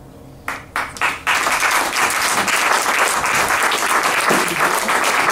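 The last low ringing of the music dies away, then an audience starts to applaud: a few single claps about half a second in, then steady applause from just over a second in.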